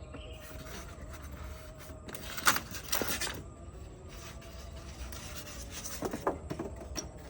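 Rustling and light knocking of packaging and parts being handled while unboxing a pressure washer, loudest about two and a half to three seconds in and again near six seconds, over a faint steady hum.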